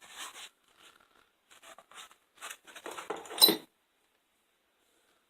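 Rustling and scraping of hand tools and their packaging being handled: a run of short scuffs, ending in a sharp clink about three and a half seconds in, after which the sound cuts off suddenly.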